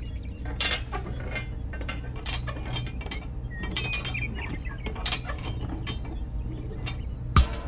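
Light, irregular clicking and scraping of small parts being handled as a thin metal rod is slid through the mounting bracket of a miniature tractor's blade attachment. A single sharp knock near the end.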